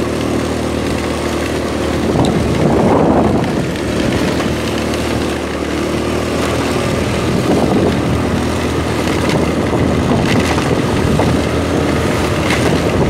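A vehicle engine running steadily while under way, with wind noise on the microphone.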